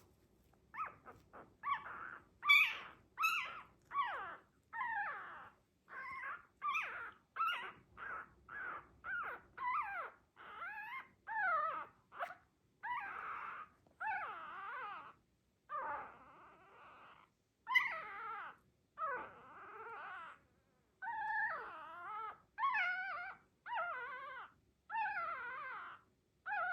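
Dachshund puppy whimpering and crying: a long run of short, high-pitched yelping cries, about one a second, starting about a second in.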